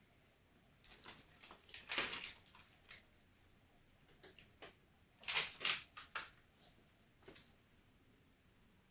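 Short, scattered clicks and scrapes of metal hand tools being handled, as a T27 Torx bit and its driver are picked out and put to work, with two louder clusters of clatter about two seconds and five seconds in.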